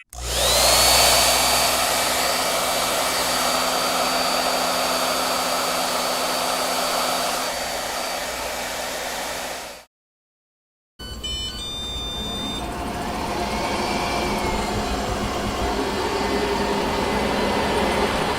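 A household appliance's electric motor and fan running steadily: a whine climbs as it spins up and then holds. It cuts off abruptly about ten seconds in, and after a second of silence a steady running noise starts again, opening with a few short electronic beeps.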